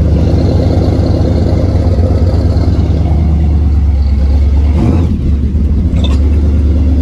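Supercharged big-block Chevy V8 on fuel injection running loud and steady with a deep rumble. It dips briefly about five seconds in, then settles back.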